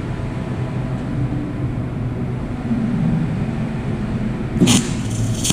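MIG welding torch striking two short arcs on thick carbon steel plate near the end, under a second apart: tack welds being tried. A steady low machine hum runs underneath.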